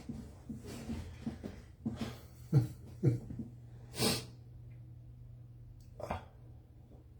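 Quiet pause with a low steady hum and a handful of short breathy puffs or rustles, the clearest about four seconds in.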